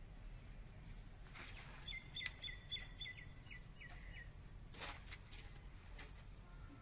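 A bird calling: a quick run of about nine evenly spaced chirps over two seconds, starting about two seconds in. Two brief rustles come just before and just after it.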